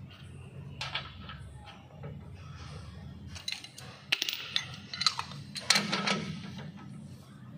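Metal tools clinking and tapping as a socket on an extension bar is fitted onto the hub nut of a drum-brake wheel hub. The sharp clinks come in a cluster in the second half, over a steady low hum.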